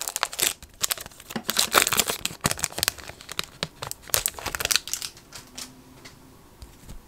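Foil wrapper of a Topps Chrome baseball card pack being torn and peeled open: a dense run of crinkling and crackling that dies away about five seconds in.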